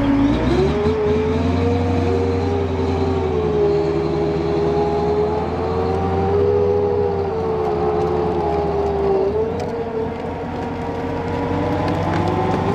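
M270 MLRS tracked launcher's Cummins V8 turbo-diesel running as the vehicle moves: a low rumble under a wavering whine. The rumble drops away about nine seconds in.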